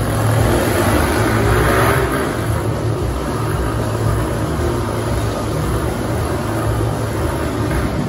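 Motorcycle engines revving as riders circle inside a steel-mesh globe of death, the engine pitch rising and falling.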